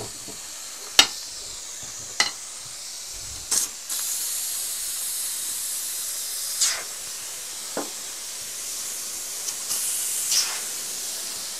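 Steam hissing from the pressure valve of an Afghan kazan, a cast-aluminium pressure cauldron, growing louder about four seconds in as its pressure is let off. A few sharp clicks and knocks come through it, the loudest about a second in.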